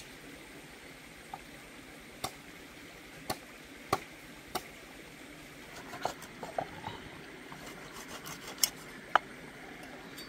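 Cleaver chopping through a large raw fish onto a wooden chopping board: sharp knocks about once a second, then a flurry of smaller cuts and two louder chops near the end. The steady hiss of a shallow stream runs behind.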